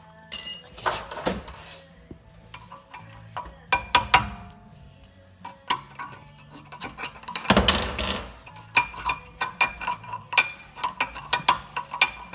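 Metal clinks and knocks as brake caliper parts and tools are handled, several with a short ringing tone. A longer scraping rattle comes about seven and a half seconds in.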